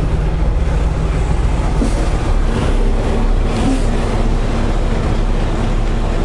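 Semi-truck diesel engine running with a steady low rumble, heard from inside the cab as the truck pulls away from a stop.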